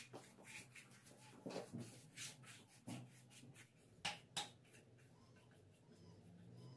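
Paintbrush bristles rubbing along a handrail in short, uneven strokes, faint and scratchy, with two sharper strokes about four seconds in.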